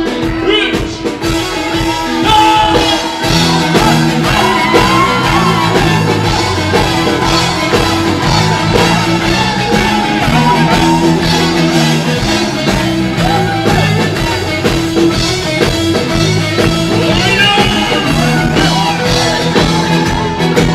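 Anatolian rock band playing live: electric guitars, bass, drums and keyboards, with a lead melody winding over a steady, repeating bass line.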